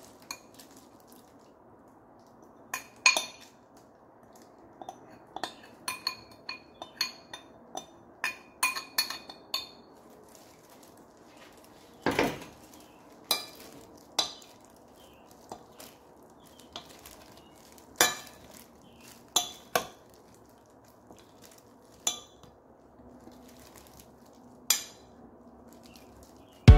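Metal serving spoon knocking and clinking against a glass mixing bowl while tossing chopped salad vegetables, in irregular knocks, some ringing briefly.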